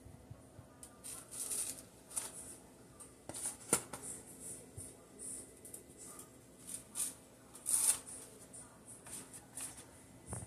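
Soft flour tortillas handled and laid into a disposable aluminium foil pan: irregular soft rustles, crinkles and light taps, a few of them louder.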